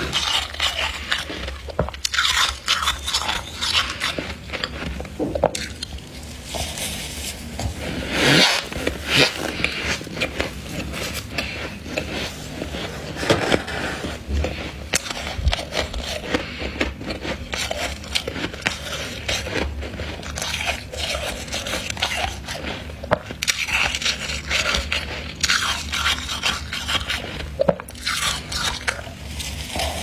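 Thick, feathery freezer frost crunching and scraping as a gloved hand scoops, squeezes and sifts it. The crisp crunches come in irregular bursts.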